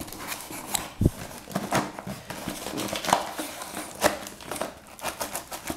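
Corrugated cardboard shipping box being opened by hand, its flaps pulled up and bent back, with rustling, scraping and crackling of the cardboard and a low thump about a second in.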